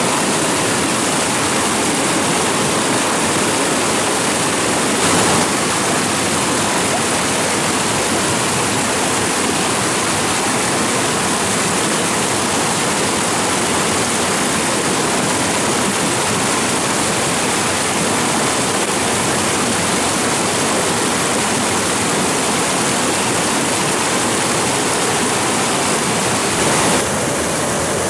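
Steady, loud rush of flowing water; its tone shifts slightly near the end.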